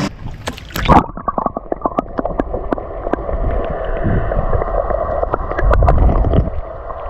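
Water splashing, then muffled underwater sound from about a second in, with the microphone submerged: gurgling and sloshing with many small clicks and low rumbles.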